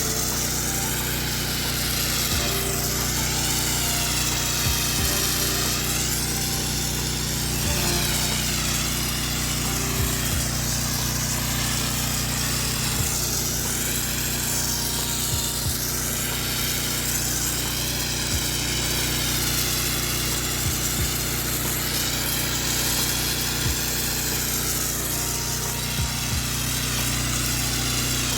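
Pressure washer engine running steadily, with the hiss of high-pressure water spray over it.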